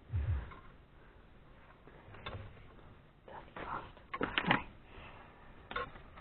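Scattered clicks and knocks of a Remington Noiseless No. 6 typewriter being handled during a teardown, with a quick cluster of them around the middle and a short low rumble at the very start.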